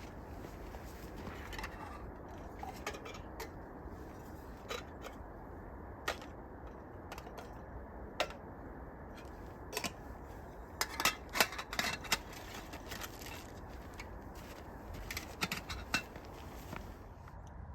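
Scattered light clicks and clinks of metal camp cookware and gear being handled, a cluster of them about two-thirds of the way in, over a steady low hiss.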